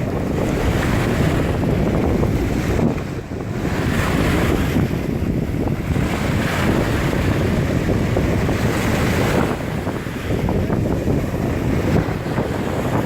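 Wind buffeting the microphone over the wash of breaking ocean surf, easing briefly and building again a couple of times.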